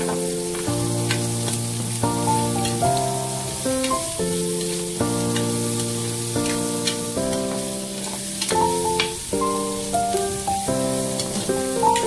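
Instrumental background music with held chords that change every second or so. Underneath it, pork and onions sizzle as they sauté in a stainless steel frying pan, and a metal spatula scrapes and clicks against the pan now and then as it stirs.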